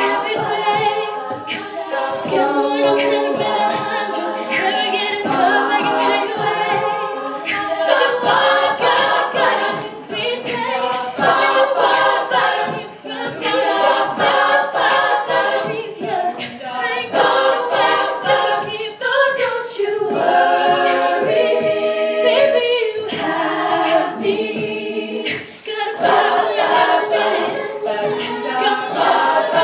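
All-female a cappella group singing in close harmony, with short percussive clicks keeping a beat under the voices.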